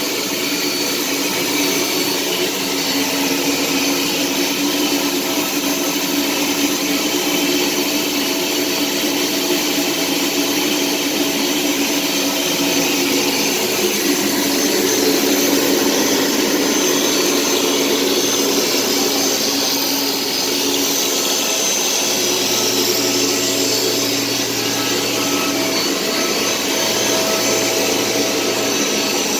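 Rebuilt Chemcut XL etch line running: a steady, even machine drone with several constant tones over a wide hiss. A low hum comes in about two-thirds of the way through.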